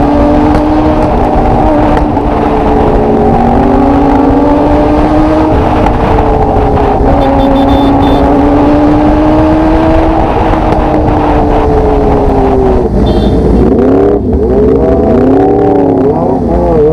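Motorcycle engine running under way at fairly steady revs, its pitch drifting slowly up and down over heavy wind and road noise. Near the end the revs rise and fall quickly several times.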